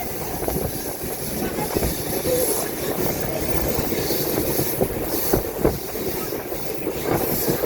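A steady rumble with scattered clicks and knocks.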